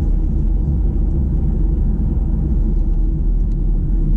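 Kia XCeed's 1.6 CRDi diesel engine running, a steady low rumble.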